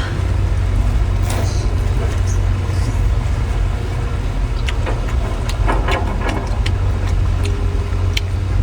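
Close-miked eating of seafood: scattered short chewing clicks and crackles over a steady low rumble.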